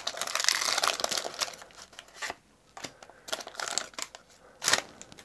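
Foil Pokémon booster pack wrapper crinkling as it is pulled open: dense crinkling for the first two seconds, then scattered crackles, with a louder one near the end.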